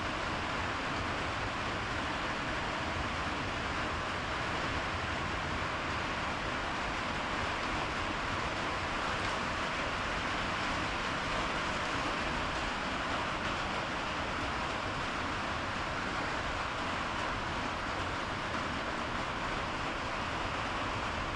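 Steady, even background noise with no distinct knocks or clicks.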